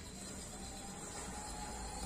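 Faint, steady hiss of a cluster of burning matchsticks.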